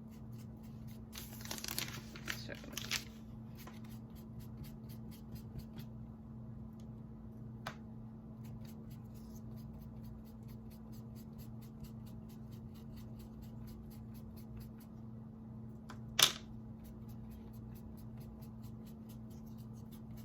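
Faint rasping strokes of a sponge brush spreading chalk paint over a raw wooden sign blank, mostly in the first few seconds, over a steady low hum. A single sharp knock about sixteen seconds in.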